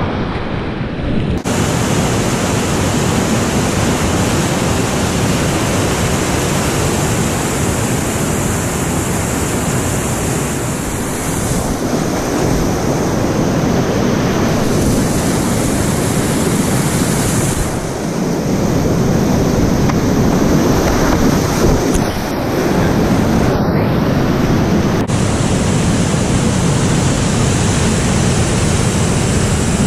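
Loud, steady rushing of whitewater rapids and a falls on a river running at medium-high flow (about 17 cubic metres per second). The noise shifts abruptly several times, as the view jumps between spots on the river.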